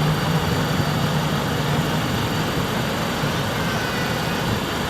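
Vehicle engine running, with a low hum that fades during the first couple of seconds, over steady street noise.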